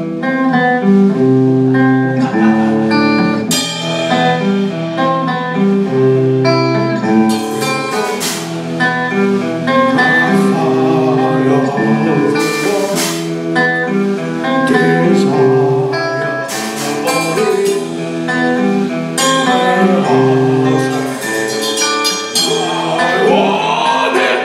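A live rock band playing a slow, clean melodic passage led by guitar, with a few cymbal crashes and singing coming in at times.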